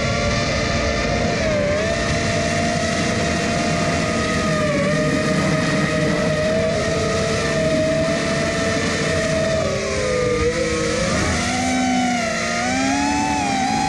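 Electric motors and propellers of a small FPV quadcopter whining steadily, the pitch dipping about ten seconds in, then rising and wavering with the throttle near the end.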